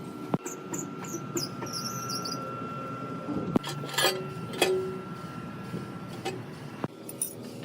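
Workshop machinery, most likely a woodturning lathe, running with a steady whine that stops about seven seconds in. Several sharp knocks and a few high, wavering squeaks are heard over it in the first half.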